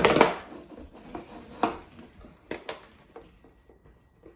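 A robot vacuum's dustbin being worked open by hand: a loud clatter at the start, then a few sharp clicks and knocks between about one and a half and three seconds in.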